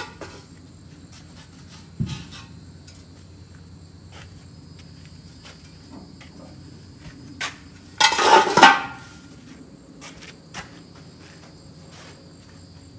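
Hard objects being handled and clattering: a sharp thump about two seconds in, scattered clicks, and a louder clatter lasting under a second about eight seconds in. Insects chirr steadily in the background.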